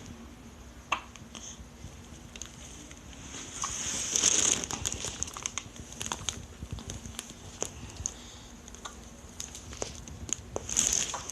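Rustling and crinkling handling noise, peppered with short sharp clicks. It swells into louder rustles about four seconds in and again near the end.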